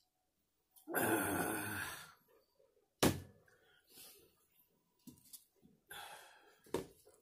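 A loud, breathy exhale lasting about a second, just after a swig of cola from a plastic bottle, then a single sharp thunk about three seconds in. Soft handling noises follow, with a second, shorter breath and another knock near the end.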